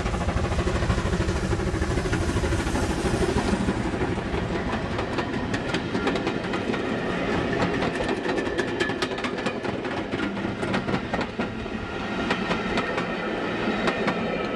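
GWR 2884-class 2-8-0 steam locomotive passing close by, a dense loud rumble for the first few seconds. Then its coaches roll past with rapid, irregular clicking of the wheels over the rail joints.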